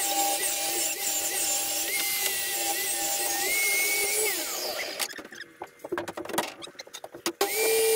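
Table saw running and ripping a length of softwood timber, its pitch dipping and wavering as the blade takes the load. About five seconds in, the saw sound drops away, leaving a few knocks of the board being handled, and near the end the running saw suddenly returns.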